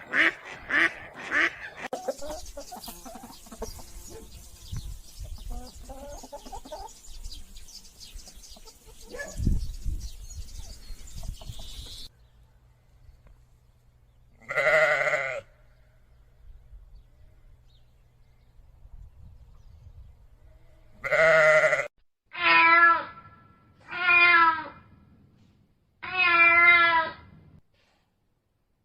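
A few rapid duck quacks at the start give way to a stretch of low background noise. Then comes livestock bleating: five quavering calls, one about halfway through and four close together near the end.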